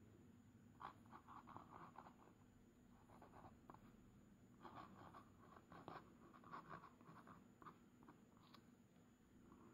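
Glass pen nib scratching faintly across a paper card while writing in cursive, in two spells of quick strokes.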